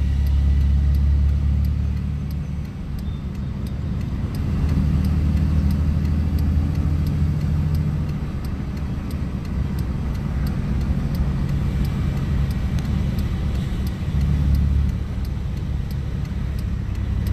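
Engine and road noise heard from inside a vehicle cab while driving down a road: a steady low rumble that eases off a little a few seconds in and swells again.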